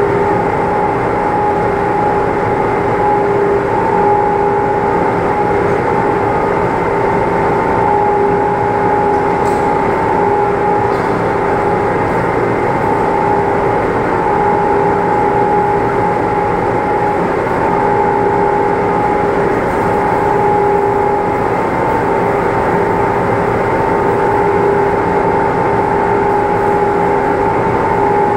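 A machine running steadily with a constant hum and a noisy rumble, unchanging throughout.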